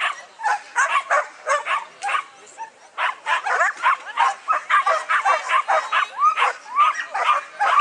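Several flyball dogs barking repeatedly while held at the start line, the barks coming several a second and overlapping, with a short lull about two and a half seconds in.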